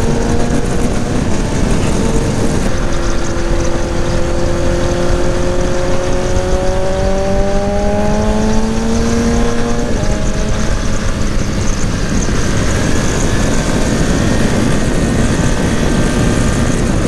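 BMW motorcycle engine under acceleration, its pitch climbing slowly for several seconds, dropping at a gear change about ten seconds in, then holding steady at highway speed, under heavy wind rush.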